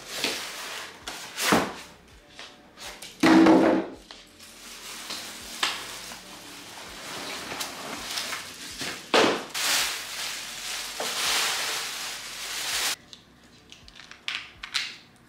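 A TV being unpacked from its cardboard box. The foam packing and the plastic-wrapped TV scrape and rub against the cardboard, with a loud rub about three seconds in. The plastic wrap then rustles for several seconds before a few small clicks near the end.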